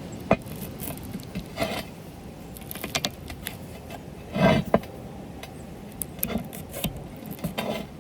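Metal clinking and scraping from handling a bench grinder's parts and a screwdriver: scattered short clicks and brief scrapes, with one louder scrape about four and a half seconds in.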